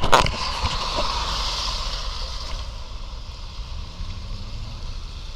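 A sharp knock of a body camera being handled and switched at the very start, then a steady rushing outdoor noise that fades over about two seconds.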